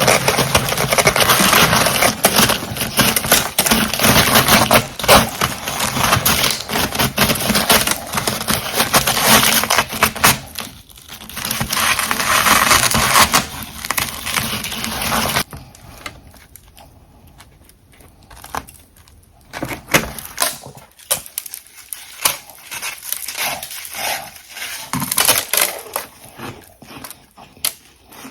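Close-miked biting and chewing of refrozen humidifier frost and crushed ice chunks: a dense, rapid crackling crunch for about the first half, which cuts off abruptly and gives way to quieter, sparser crunches.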